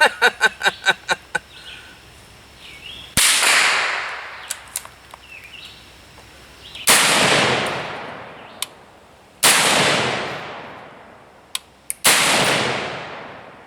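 Four single rifle shots a few seconds apart, each sharp crack followed by a long echo that fades over about two seconds. A quick run of light clicks comes in the first second and a half.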